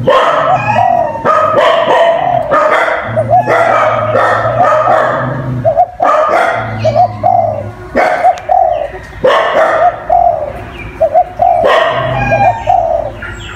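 Spotted dove cooing, repeating its phrase over and over.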